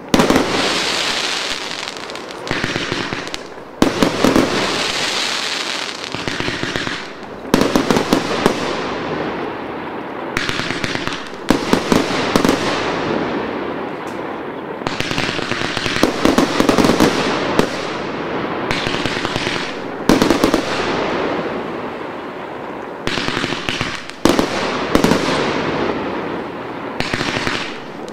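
Boneshaker firework cake by Mars Pyrotechnics firing shot after shot. Each sharp bang is followed by dense crackling that fades, with a new volley every couple of seconds.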